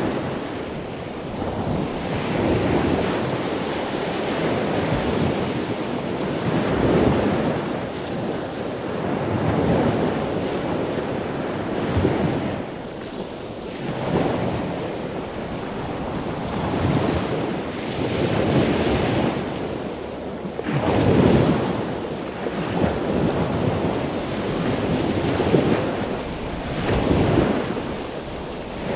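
Ocean waves washing in and out: a steady rushing noise that swells and eases every couple of seconds.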